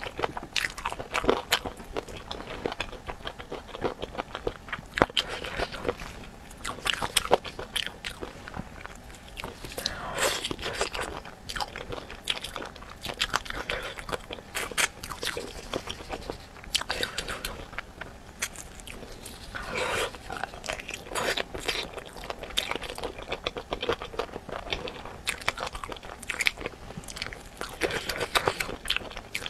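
Eating spicy chicken feet: biting and chewing with frequent irregular crunches, sharp clicks and wet crackles.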